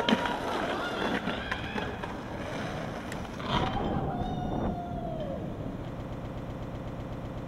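Skateboard click near the start over street traffic noise, then about three and a half seconds in a man lets out one long cheering shout that drops off at the end.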